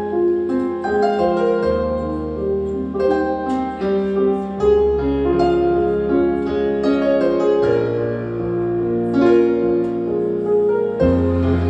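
Gentle instrumental music: quick plucked, piano- or harp-like notes over a held bass note that changes every few seconds.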